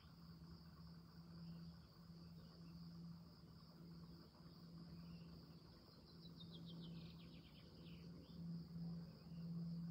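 Faint, steady high-pitched chirring of insects such as crickets, with a low steady hum underneath.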